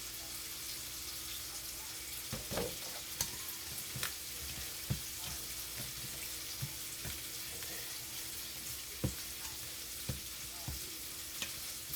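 Steady sizzling of T-bone steak frying in a pan, with scattered light knocks and clicks of a spoon against a pot as mashed potatoes are stirred with milk.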